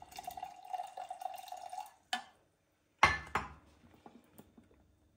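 Brewed coffee poured from a glass French press into a glass mug, a steady trickling pour for about two seconds. Then a click and, a second later, two sharp knocks, the loudest sounds here, as the press is set down on the counter.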